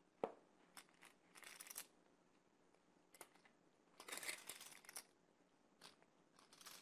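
Near silence broken by faint clicks and rustles of poker chips being handled at the table, with one sharper click just after the start.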